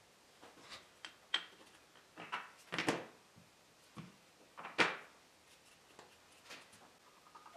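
Small wooden blocks being picked up, set down and knocked into place against a wooden board and a long level: a handful of light wooden knocks and clacks, the loudest about three seconds in and again near five seconds in.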